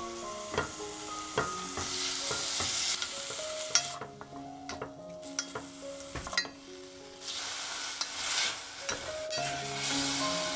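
Cubed beef sizzling as it is stir-fried in a stainless steel pot with a wooden spatula, with a few sharp clicks of the spatula against the pot. The sizzle dips for a moment twice around the middle.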